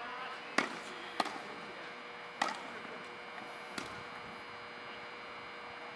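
Tennis balls popping off racket strings and bouncing on a hard court during a rally: four sharp, separate pops in the first four seconds, then only a faint steady hum.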